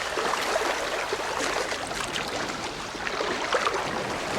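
Shallow seawater washing and trickling at the shore: a steady crackling hiss of small splashes.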